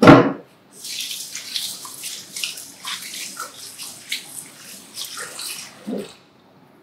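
A single knock, then a kitchen sink tap running for about five seconds as hands are rinsed under the stream, the splashing sound shifting as the hands move. The water stops about six seconds in.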